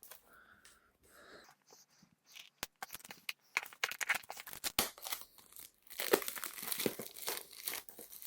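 Plastic wrapping on a small product box being pierced with a pin, then torn and crinkled off. It starts as faint scattered clicks and grows louder and denser, with steady crackling from about six seconds in.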